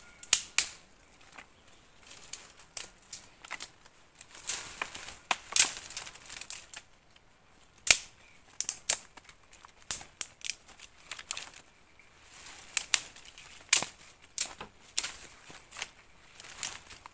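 Dry sticks and twigs being snapped by hand: irregular sharp cracks, with rustling of twigs and leaves between them.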